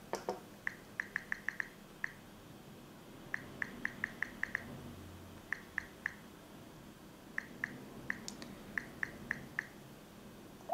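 Key-press sounds of the Samsung Galaxy S3's on-screen keyboard as an email address and password are typed. Short, high, pitched ticks come in quick runs of a few at a time, with short pauses between the runs.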